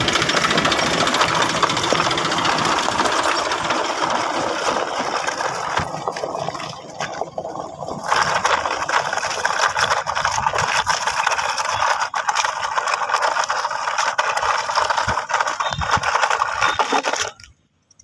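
Plastic toy dump truck's wheels rolling and rattling over gravel as it is pulled on a string, a steady gritty rattle with scattered clicks. It drops out suddenly near the end.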